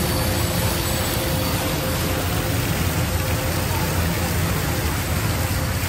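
Steady street ambience: a continuous wash of crowd chatter and traffic noise with no single sound standing out.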